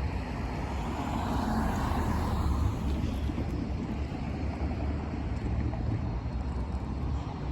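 GE Dash 8-40BW diesel locomotive running with a steady low rumble as it rolls slowly.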